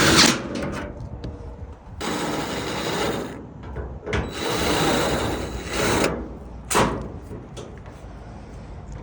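Power screwdriver driving screws into a dryer's sheet-metal cabinet: two steady runs of a second and a half and two seconds, with a faint whine. A sharp knock comes at the start and another near the end.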